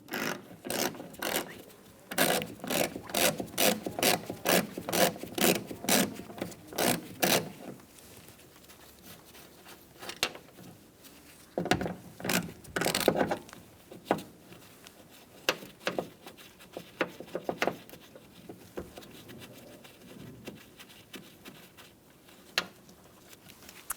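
Ratchet wrench with a 10mm socket backing off the door handle's retaining nuts: a quick run of rasping clicks, about three strokes a second, for the first seven seconds or so. After that come scattered clicks and rattles of the loosened nuts and handle being worked by hand.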